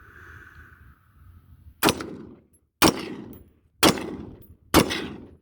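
Four single shots from an AR-15 rifle fired semi-automatically, about one a second, each with a short echoing tail.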